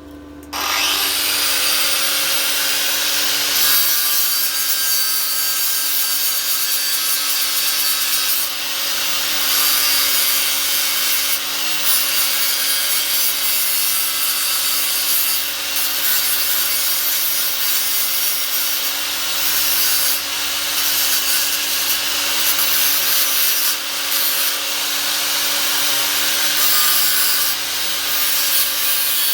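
Angle grinder starting up about half a second in, then grinding the paint off the scooter's metal: a steady motor whine under a loud, harsh abrasive noise that wavers as the disc is pressed and moved.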